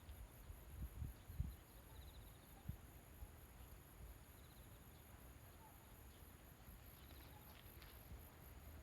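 Quiet countryside ambience: insects keep up a steady high trill, with short higher chirps every second or two. Underneath is a low rumble, with a few soft thumps in the first three seconds.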